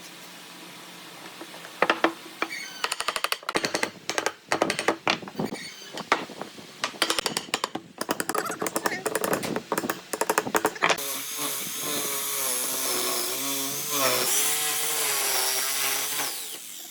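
A fast, irregular run of knocks and clicks, then a person's voice over a steady hiss.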